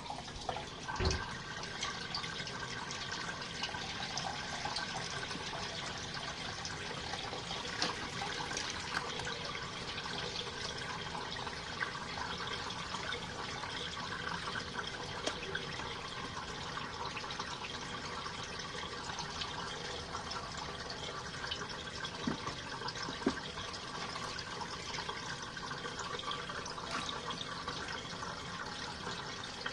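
Compact RV washing machine draining its wash water, a steady run of water through the drain with a short knock about a second in.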